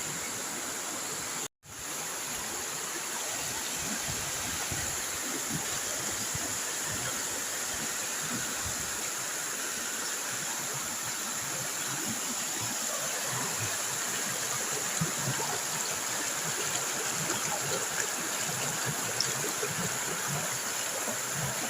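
Waterfall: a steady rush of falling and running water, with a brief dropout to silence about one and a half seconds in.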